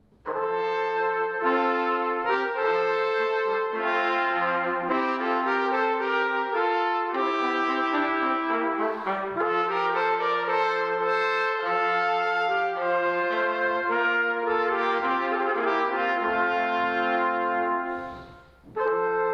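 Instrumental ensemble music: slow, sustained chords held by several instruments together, changing every second or two. The music breaks off briefly near the end, then resumes.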